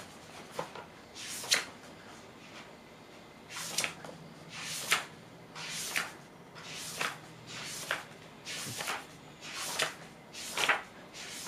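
Pages of a glossy magazine being turned one after another, each turn a short papery swish, about once a second.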